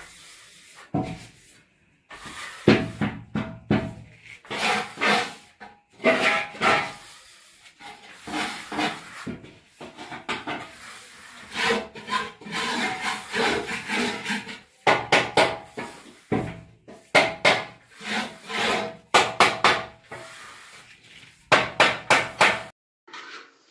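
Hand tool rubbing over a fresh oxide floor coat in repeated strokes, each a short scraping burst with short pauses between, as the surface is smoothed and polished.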